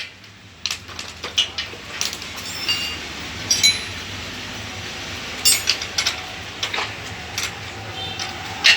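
Irregular metallic clinks and taps, like tools and metal parts being handled, over a low steady hum.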